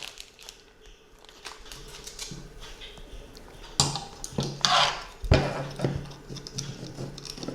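Small metal parts clicking and rattling as drone motors and their screws are handled and screwed onto a quadcopter frame. The clicks are irregular, with a few louder knocks about four and five seconds in.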